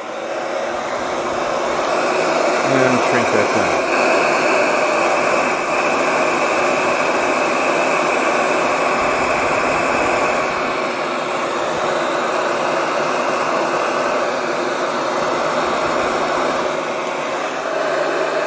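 Large electric heat gun running, a steady rush of blown hot air with a faint whine.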